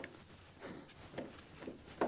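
Quiet workshop handling sounds: a few faint, soft knocks of tools or parts being moved on the engine.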